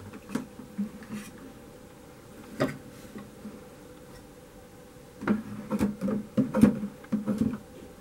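Plastic door of a Casdon toy washing machine being handled: a few light clicks as it is unlatched and opened, then a quick run of clicks and knocks near the end as it is swung shut and latched.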